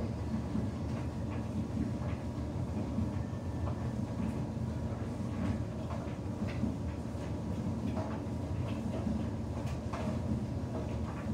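Samsung front-loading washing machine in its wash tumble: the drum turns with a steady low rumble while sudsy water sloshes against the door glass, with scattered light clicks and splashes.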